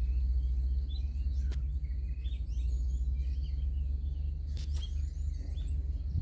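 Small birds chirping and twittering in reeds over a steady low rumble, with a few faint clicks.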